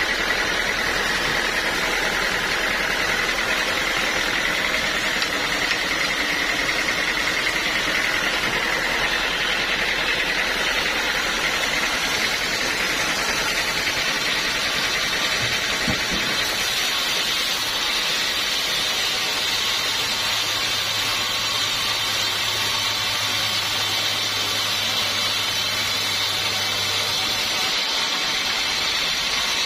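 Sawmill saw running steadily, cutting through a teak log, a constant mechanical noise with no breaks.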